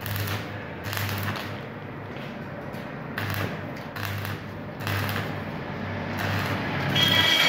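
Electric arc welding on a steel gate frame: the electrode crackles and sizzles as short welds are run, and the welding transformer's low hum comes and goes in short spells. Near the end a whine with a few steady high tones comes in and the sound grows louder.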